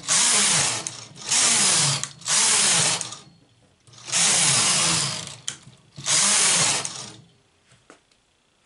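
Knitting machine carriage slid back and forth across the metal needle bed, knitting plain rows. There are five passes, each a loud rasping run of about a second with short pauses between. It stops after about seven seconds, leaving a few small clicks.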